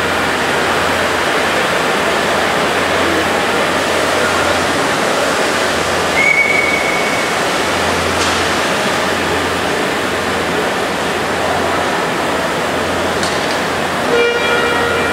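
Two short whistle toots from 5-inch gauge live-steam model locomotives over a steady rushing hiss: a single high note lasting about a second, about six seconds in, and a deeper toot of several notes at once near the end.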